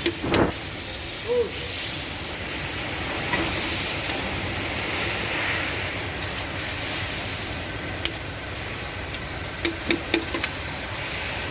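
Steady hiss of air or spray blowing continuously, with a few sharp clicks about eight and ten seconds in.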